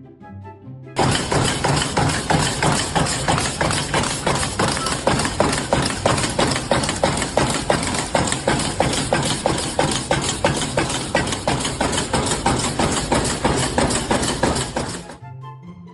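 A machine running with a fast, even clatter of knocks. It starts suddenly about a second in and cuts off near the end.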